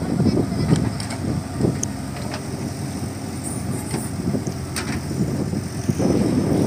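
Diesel engines of a JCB 3DX backhoe loader and a tipper lorry running, a steady low rumble with a few sharp clanks. It gets louder about six seconds in.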